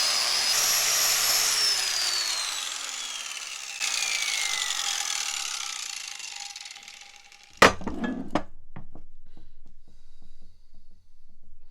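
Small grinder fitted with a wire brush running at speed with a high whine, then switched off and spinning down, its pitch falling steadily over about five seconds. After it stops comes a sharp loud clunk and a few lighter knocks, as of the tool being handled and set down.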